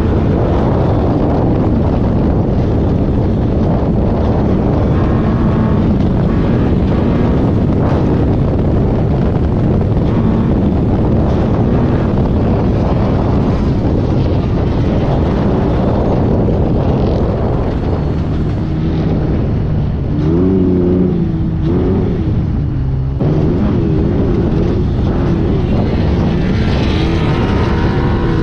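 Off-road race buggy heard from inside the car, its engine running hard under heavy wind and rattle noise. In the last third the engine pitch rises and falls repeatedly as the driver works the throttle, with a short lift about two-thirds of the way in.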